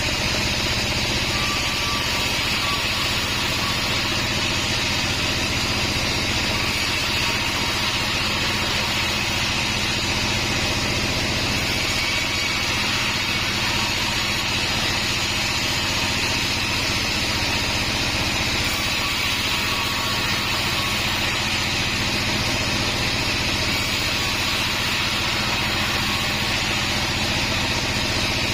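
Band sawmill running steadily, its motor humming under a continuous high-pitched hiss.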